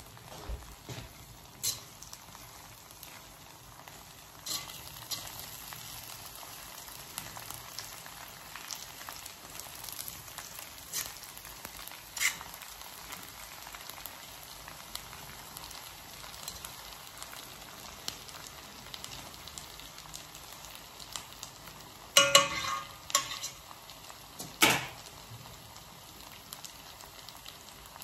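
Rice with potato and carrot sizzling steadily in a wok on a gas hob, with a spatula stirring and scraping through it. There are scattered clicks, and near the end a short run of louder clatters of the spatula against the pan.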